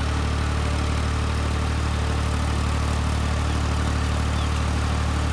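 Ursus tractor's diesel engine running steadily at a low, even speed.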